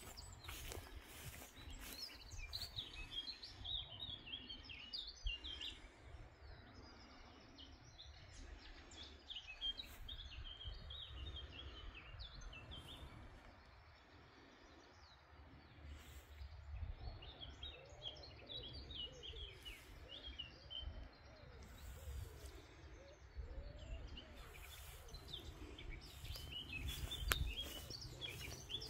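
Small birds singing in the countryside: clusters of short, high chirping phrases that come and go, busiest in the first few seconds and again past the middle, over a steady low rumble.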